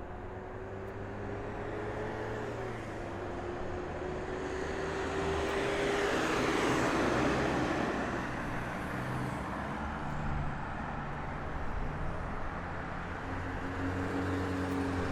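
A vehicle passing by: a steady engine hum that swells to its loudest about seven seconds in, then eases off.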